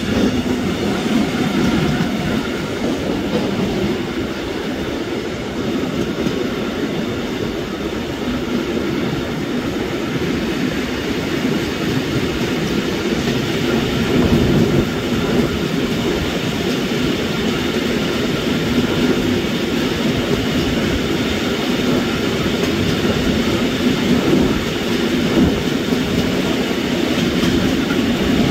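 Steady rolling rumble of a Swiss EW I passenger coach's wheels on the rails, heard from an open window while the train moves through a rail yard.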